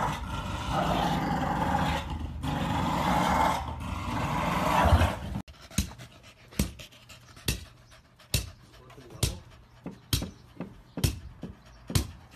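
A dog panting hard in a dense, breathy rush. About five seconds in the sound cuts to a run of sharp knocks, roughly one a second.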